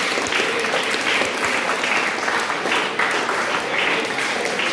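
A seated group of students applauding, with clapping that keeps an even level throughout.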